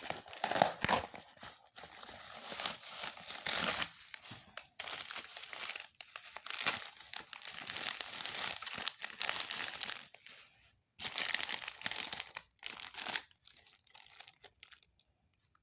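Toy packaging being crinkled and torn open by hand, in irregular bursts with short pauses, going quiet for moments near the end.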